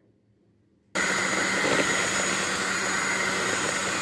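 Electric hand mixer switching on suddenly about a second in and running steadily, its wire beaters whipping eggs and sugar in a bowl to a foam.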